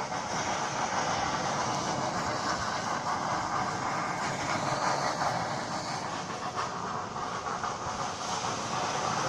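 Oil well discharging gas and well fluid under pressure during a kick (gas-oil-water show): a steady, loud rushing hiss that does not let up.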